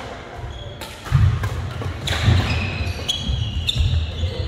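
Badminton rally play in a sports hall: repeated thudding footfalls on the court floor, sharp racket-on-shuttlecock hits, and short squeaks of trainers on the floor, all echoing in the hall.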